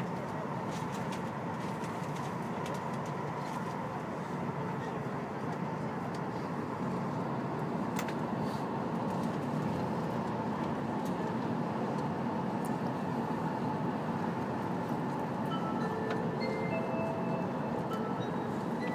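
W7-series Shinkansen running, its steady rumble and rush heard inside the passenger car, growing a little louder about six seconds in. Near the end, an onboard chime melody of short notes at several pitches begins.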